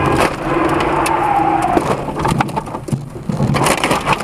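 Car crash heard from a dashcam. A steady hum and a falling whine in the first two seconds give way to a dense run of crunching and cracking impacts, thickest near the end.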